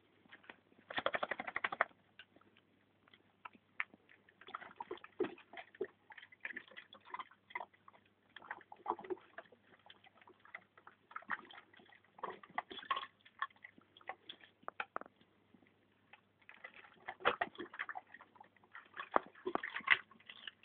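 A dog with its muzzle in a plastic bucket of icy slush, biting and lapping at it, sloshing water and clicking ice in irregular bursts with short pauses between.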